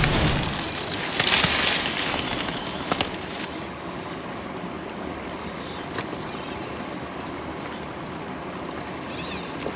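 Axial SCX10 III RC rock crawler's electric motor and gears running as the truck crawls over rocks, louder for the first three seconds or so, with one sharp knock about six seconds in.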